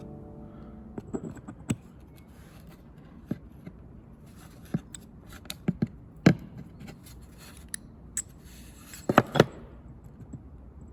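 Scattered sharp clicks and clinks of hand work with tools and metal parts, single knocks spread out, the loudest about six seconds in, and a quick run of three knocks a little after nine seconds.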